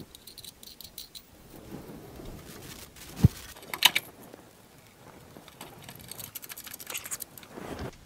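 Faint rattling and rustling of a doorbell transformer and its wire leads being handled, with a few sharp clicks about three to four seconds in.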